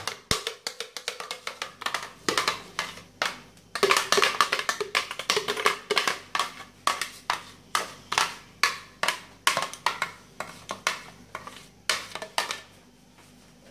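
Background music with a quick, clicky percussion beat.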